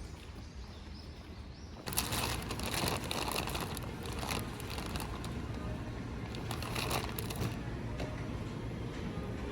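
Rustling, crinkling handling noise with small clicks, starting about two seconds in.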